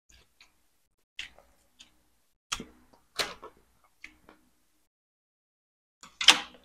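Close-miked mouth sounds of a man eating boiled chicken: scattered short clicks and lip smacks of chewing, the loudest about six seconds in.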